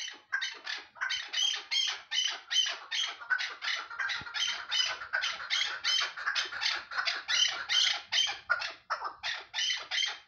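Chukar partridge calling: a long, fast series of repeated chuk notes, about four a second, loudest in the middle.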